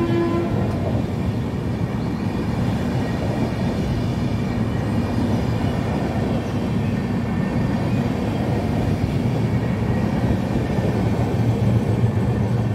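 LHB passenger coaches of an express train passing at high speed: a loud, steady rumble of wheels on rail with rushing air, getting a little louder near the end as the train's power car goes by.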